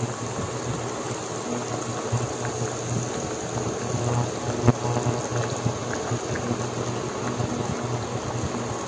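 Pot of chicken tinola broth boiling, the liquid bubbling steadily with many small pops, over a steady low hum.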